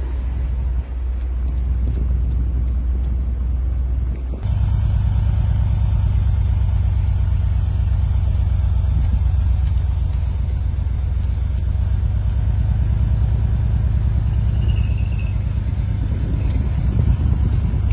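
Low, steady rumble of a slow-moving vehicle's engine and tyres. It cuts off abruptly about four seconds in and comes back slightly louder.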